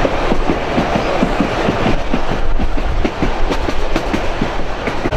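Broad-gauge heritage passenger train running along the track: a steady rumble with a quick, irregular clatter of wheels over the rails.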